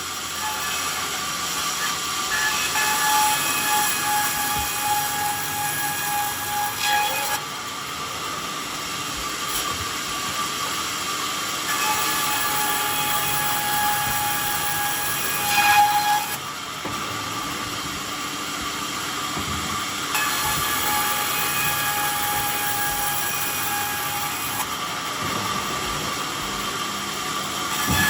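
Sawmill saw cutting bayur wood in three passes, each lasting several seconds, with a steady whine over the hiss of the cut that stops as each pass ends. The machine keeps running between the cuts. The second cut ends with a brief louder burst.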